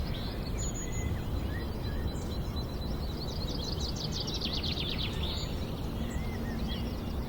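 Nature soundscape bed: songbirds chirping and calling over a steady low background rumble, with one rapid falling trill about three seconds in.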